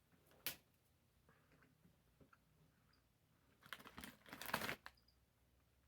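Faint handling of candy packaging: a single click about half a second in, then a short burst of plastic crinkling near the four-second mark.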